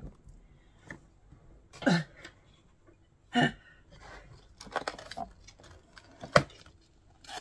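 Hands handling a cardboard box and lifting a paper pad out of it: scattered short rustles and knocks, with a sharp tap about six seconds in.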